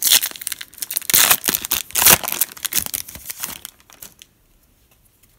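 A Panini Elite football card pack's shiny wrapper being torn open and crinkled by hand. It crackles loudly for the first three seconds, then dies down to a few faint rustles and is quiet by about four seconds in.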